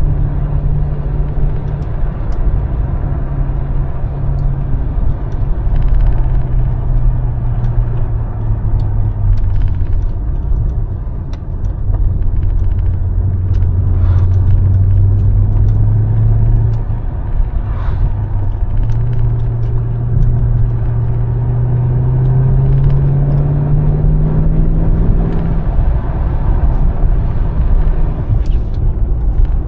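Mercedes-AMG S63's V8 engine running while driving, with a deep steady rumble. Its note steps down several times, climbs slowly for several seconds, then drops back near the end.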